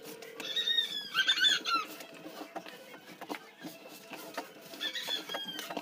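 Hands mixing crumbly ground-peanut filling in a plastic basin, a soft scratchy rustle. Two short bursts of high, falling squeaks stand out, the first and louder soon after the start and the second near the end.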